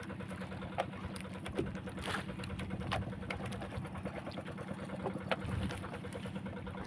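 A small engine running steadily with a low, even hum, with a few short light clicks over it.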